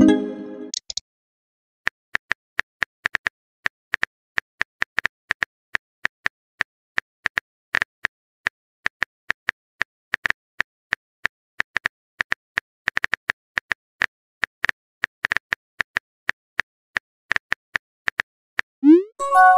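Phone keyboard typing sound effect of a texting app: a long run of quick, sharp clicks, a few per second and unevenly spaced. Near the end a short rising swoosh and a bright chime mark a message being sent.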